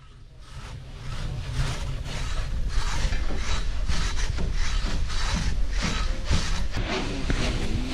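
Handsaw cutting through a large squared timber by hand: the teeth rasp through the wood in a steady rhythm of about two strokes a second, starting about a second in.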